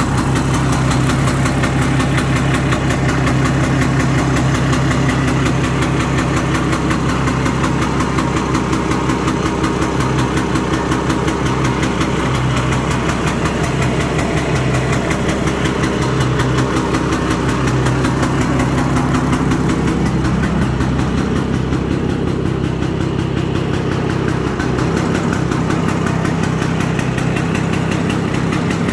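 1967 Ski-Doo Olympique 250 snowmobile's two-stroke engine idling steadily while warming up.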